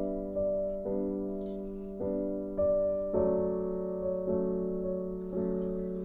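Background piano music: slow, soft chords, a new one struck about every half second to a second and left to ring.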